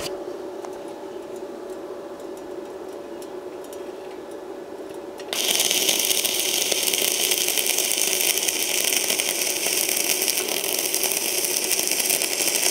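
Vevor MMA 200 inverter stick welder humming steadily, then about five seconds in the electrode arc strikes and crackles loudly and steadily as a bead is run on thin sheet steel at 80 amps.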